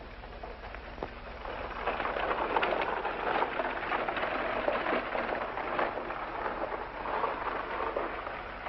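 Horse-drawn buggy arriving: a dense clatter of hooves and wheels on a dirt road that grows louder about a second and a half in and then keeps going.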